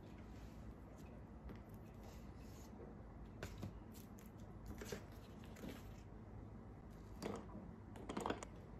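Quiet tableware handling: a few soft taps as paper baking cups are set on a glass saucer, then a spoon clinking against a glass mug near the end, over a low steady hum.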